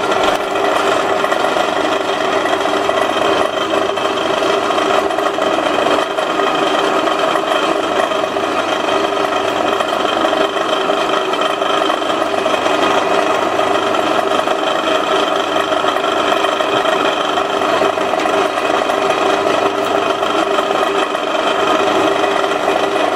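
Drill press running steadily, with several steady tones in its hum, as the spinning M6 threaded rod is drilled down its centre on a 3 mm bit held in the vise. The rod is worked up and down to let the shavings out as the bit's fluting runs out.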